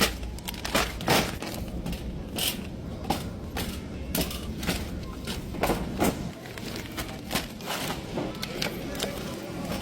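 Irregular knocks, clicks and rustles, a few every second, over a low steady hum.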